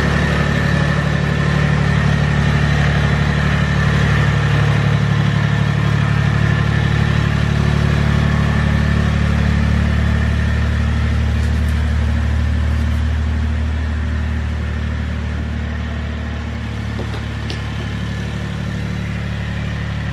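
Mahindra 3525 tractor's three-cylinder diesel engine running steadily as the tractor drives off, growing fainter in the last few seconds as it moves away.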